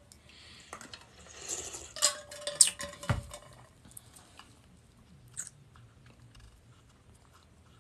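A man drinking from a bottle: sipping and swallowing sounds with small clicks, then a knock about three seconds in, followed by faint mouth clicks.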